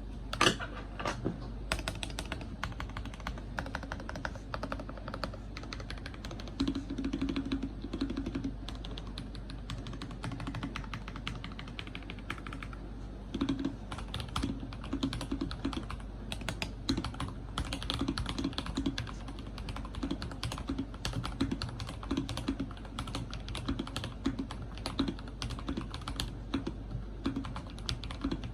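Typing on a tape-modded NovelKeys NK87 Entry Edition mechanical keyboard: a steady stream of keystroke clacks, with now and then a deeper, louder stroke.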